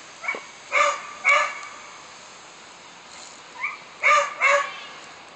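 A dog barking: two pairs of quick loud barks about three seconds apart, each pair led by a short, quieter yip.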